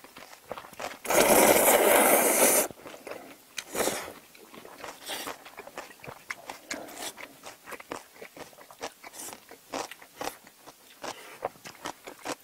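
A long, loud slurp of jjajang noodles about a second in, lasting about a second and a half, followed by close chewing with many short crunches and clicks of radish kimchi and noodles being eaten.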